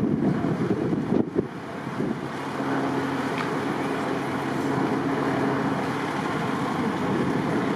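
Strong wind buffeting the microphone over a steady low hum of idling vehicle engines, with a brief lull and a short knock about a second and a half in.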